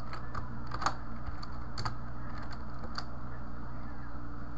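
Computer keyboard keys typed a few times, single clicks spaced about a second apart, over a steady low electrical hum.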